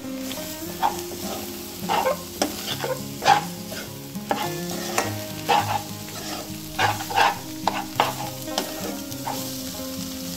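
Metal spoon stirring and scraping scrambled egg and dry prawn masala in a nonstick kadai as it sizzles in oil, with irregular clacks of the spoon against the pan.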